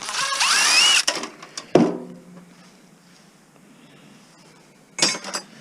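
Metal being worked by hand: a squealing, grating scrape for about a second, a sharp clank with a short ring just before two seconds in, and a brief rattle near the end.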